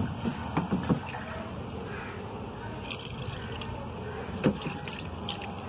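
Liquid splashing and pouring into a small bottle-cap dish of acid cleaning mix holding brass carburetor jets, with a few light knocks.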